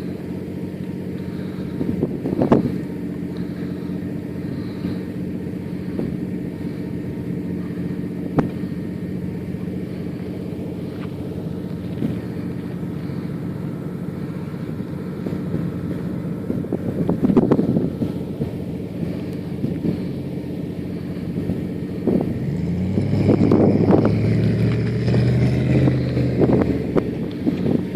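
Off-road 4x4 engine running at a steady note, with a few sharp knocks about two, eight and seventeen seconds in; near the end the engine note shifts and grows louder as it works harder.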